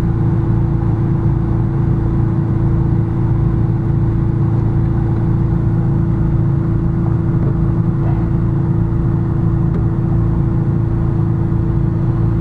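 A running motor's steady low hum with one constant tone above it, unchanging throughout.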